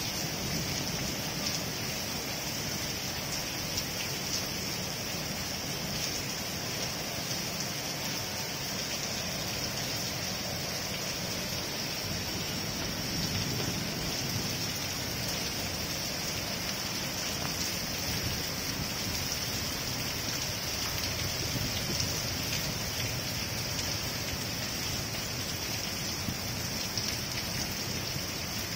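Steady rain falling on a flat concrete rooftop, a constant even hiss with no breaks.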